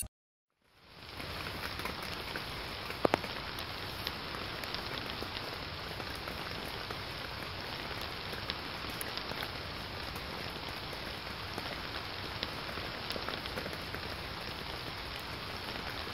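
Steady rain falling: an even hiss with scattered sharper drop ticks, two louder ticks about three seconds in.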